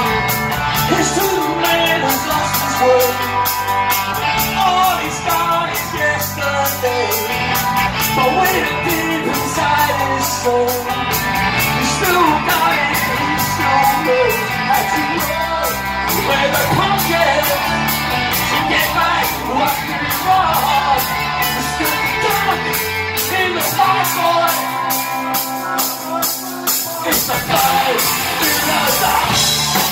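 Live rock band playing: electric guitars, bass and drums with a male lead vocal. About three quarters of the way through, the bass and kick drum drop out for a few seconds, then the full band comes back in.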